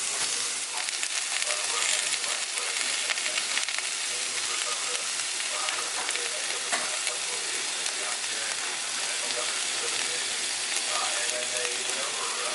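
Vegetables and eggs frying in coconut oil in a pan, a steady sizzle with a few faint clicks.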